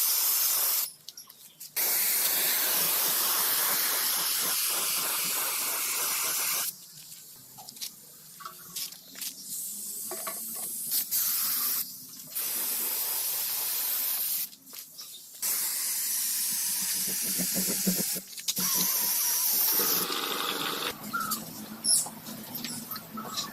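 Compressed-air spraying hissing in repeated bursts of a few seconds each, switched on and off with short pauses between, with small handling clicks in the pauses.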